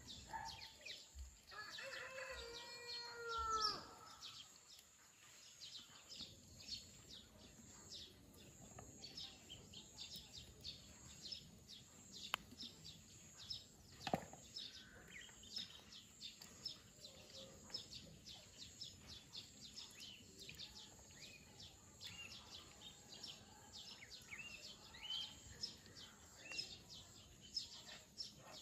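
Low-level outdoor background with a scatter of faint clicks and rustles from a Eurasian jay picking through moss with its bill. About two seconds in, a drawn-out bird call of about a second and a half, arching in pitch, is the loudest sound.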